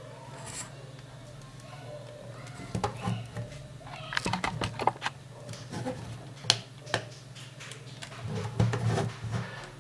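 Scattered sharp plastic clicks of the small LCD TV's front-panel push buttons being pressed to work its on-screen menu, over a low steady hum.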